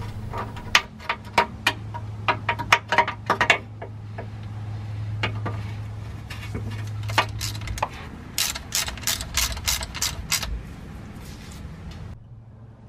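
A ratchet clicking in three short runs of quick clicks as the differential fill plug is wound back in, over a low steady hum.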